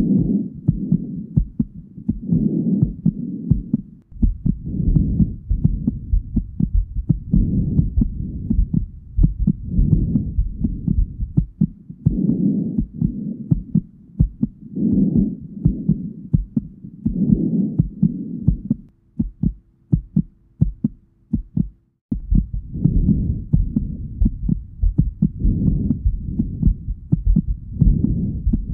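Heartbeat and breathing, as heard through a stethoscope: a steady low heartbeat, with a slow breath swelling about every two and a half seconds. Both drop almost away for about three seconds some two-thirds through, leaving a faint hum, then resume.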